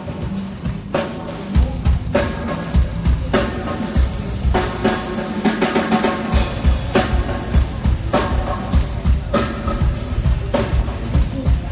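A live pop band playing through a large hall's PA during a soundcheck: a drum kit keeps a steady beat of kick and snare hits, about two a second, under guitar and keyboards. The full beat with the heavy kick comes in about one and a half seconds in.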